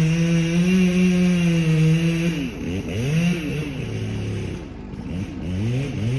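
Two-stroke chainsaw held at a steady high speed for about two seconds, then revved up and down several times in quick succession.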